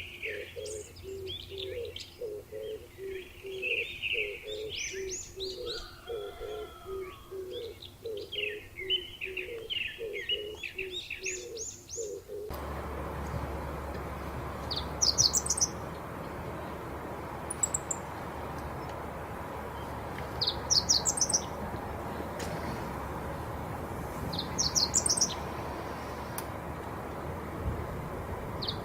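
Birds singing: a quickly repeated low note under a mix of varied high chirps. About halfway through it changes abruptly to a different recording, with short bursts of high chirps every few seconds over a steady noise background.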